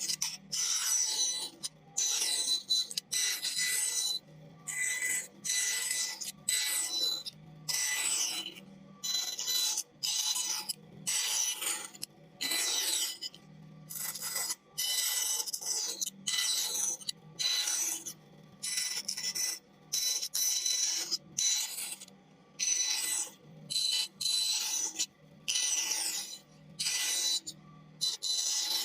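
A blade cutting into a wooden board in repeated short, crisp scraping strokes, about one a second, each with a brief pause after it.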